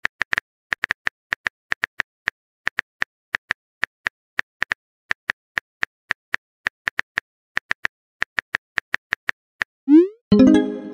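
Phone keyboard typing sound effect: soft, irregular taps, about three or four a second. Near the end a rising whoosh and then a short chime-like message tone as the message is sent.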